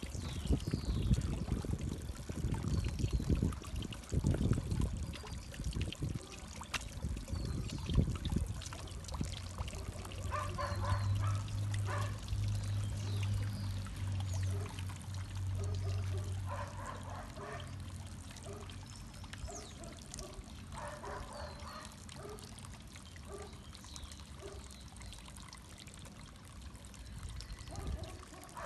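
Garden pond fountain water pouring and trickling into the pond, loudest in the first several seconds and fading later. Small birds chirp now and then over it, and a low hum runs for several seconds in the middle.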